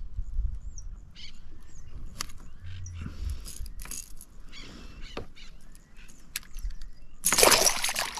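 Hooked fish thrashing and splashing at the water's surface beside a kayak, a loud splash of about a second near the end. Before it, faint scattered knocks and clicks.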